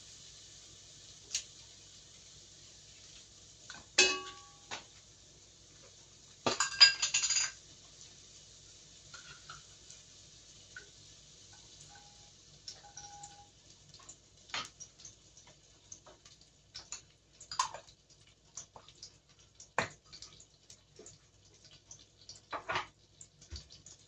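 Kitchen dishes and utensils clinking: a single ringing clink about four seconds in, a louder clatter with ringing tones around seven seconds, then scattered light ticks and clicks.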